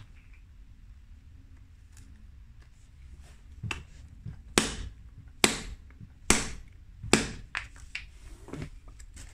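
Sledgehammer blows on a cast Task 12 tooling-resin disc sitting on a brick: five sharp strikes a little under a second apart, starting a few seconds in, then a few lighter knocks.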